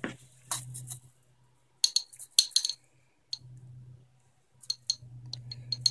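Steel tape measure clicking and rattling as its blade is pulled out and held against the wheel, in several short runs of light metallic clicks. A low hum comes and goes underneath.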